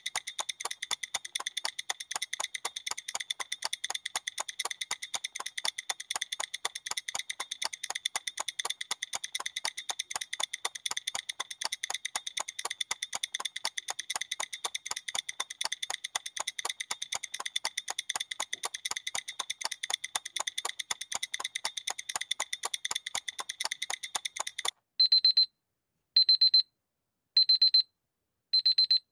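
A Huawei phone clock app's countdown timer ticking rapidly as it runs down. About 25 seconds in the ticking stops and the timer-done alarm starts: short high beeps, a little over a second apart.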